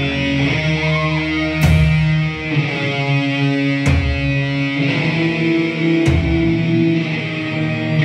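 A live metal band playing loud electric guitars over drums: held guitar chords that shift pitch every couple of seconds, with a cymbal crash roughly every two seconds.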